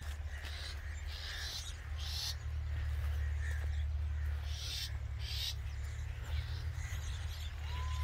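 Birds calling: several short, harsh, hissy calls and soft repeated chirps, then one whistled note that rises and falls near the end, over a steady low rumble.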